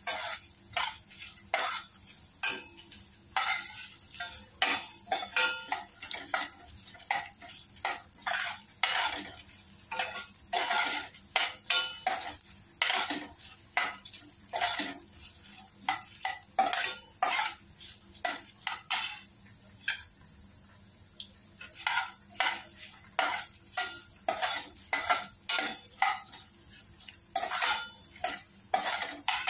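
Steel spoon scraping and stirring chana dal, coriander seeds and dried red chillies roasting in a little oil in a stainless steel pan. The strokes come irregularly, about one or two a second, with a couple of short pauses.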